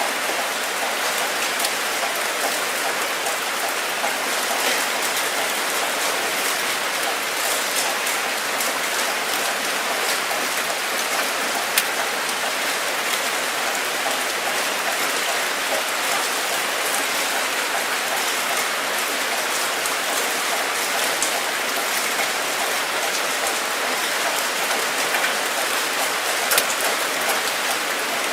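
Steady rain falling, a dense even hiss with many small sharp drop ticks; a couple of louder single drips stand out, one about twelve seconds in and one near the end.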